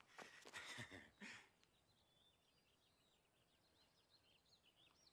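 A few footsteps on a dirt path in the first second and a half, then faint birdsong: many short, quick chirps.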